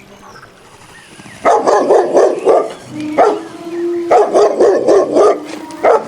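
Dog barking: after a quiet start, two runs of quick barks starting about a second and a half in, each followed by a single bark.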